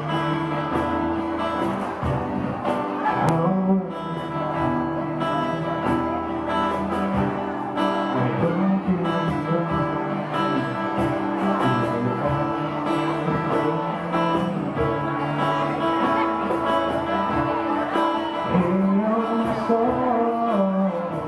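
Live band playing a rock song, with guitar to the fore.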